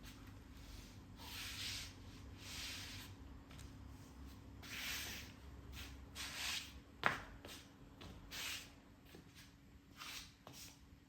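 Soft rubbing or rustling swishes, about five of them, with one sharp click about seven seconds in.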